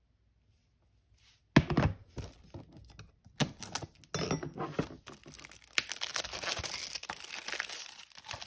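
Plastic shrink-wrap being cut and peeled off a Blu-ray case. A sharp click about a second and a half in and a few more clicks and knocks, then steady crinkling and tearing of the plastic film from about five seconds in.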